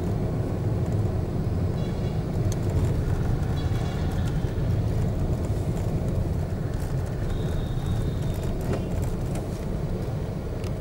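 Steady low rumble of a vehicle's engine and road noise while driving in town traffic, with a few brief high-pitched tones, the longest about seven to eight seconds in.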